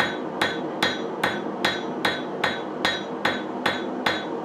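Hand hammer striking red-hot thin knife steel on a steel anvil in a steady rhythm of about two and a half blows a second, each blow with a short metallic ring. It is forging the edge bevel of a Scandinavian-style knife blade.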